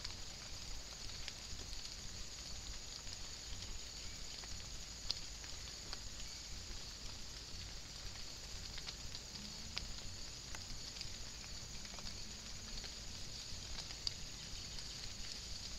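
Light rain pattering, with scattered sharp drop ticks over a steady high hiss.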